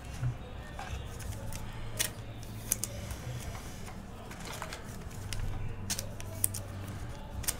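Trading cards being handled and sorted by hand, with a few scattered light clicks and snaps at irregular moments over a steady low hum.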